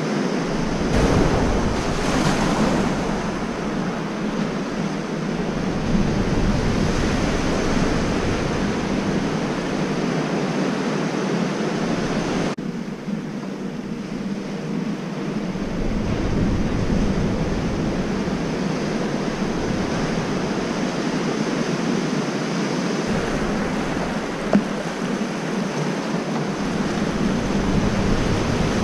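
Artificial surf breaking and washing along a wave pool, a steady rushing noise, with gusts of wind rumbling on the microphone now and then. The sound drops sharply for a moment a little under halfway through.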